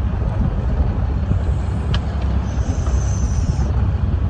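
Steady low rumble of a fishing boat's engine and wind, running evenly throughout, with a single faint click about two seconds in.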